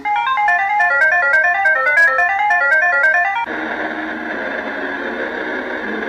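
Electronic music: fast runs of short, high, ringtone-like notes stepping up and down over a steady low tone. About three and a half seconds in, it changes to a denser, sustained texture.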